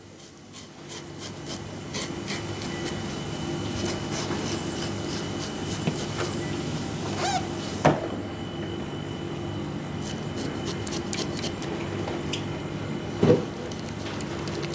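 A knife scraping the scales off an azukihata fish on a plastic cutting board: a run of small crackling ticks and scrapes over a steady hum, with two louder knocks about eight and thirteen seconds in.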